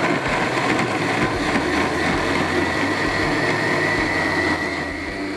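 Electric countertop blender running steadily, its blades pureeing pandan leaves in coconut milk, with a high motor whine over the churning of the liquid.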